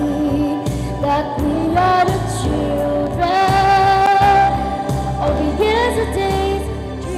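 A song: a solo voice sings a slow melody with long held notes over instrumental backing.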